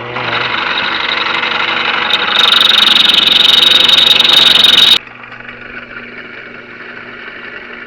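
A homemade belt-driven drill press boring a hole with a 1/2-inch bit: a loud grinding cutting noise that gets louder and harsher about two and a half seconds in, then stops suddenly about five seconds in. The press's motor keeps running with a steady hum afterwards.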